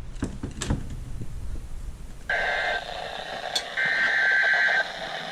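Emergency Alert System SAME header from a NOAA Weather Radio broadcast: buzzy bursts of digital data tones heard over a radio receiver. The first, short burst starts about two seconds in and a second, one-second burst follows about a second later. A couple of clicks sound near the start.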